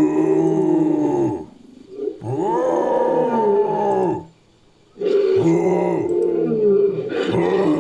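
Made-up creature roar sound effect mixed from a human voice and lion roars: three long, arching roars with a growl in them, separated by short breaks.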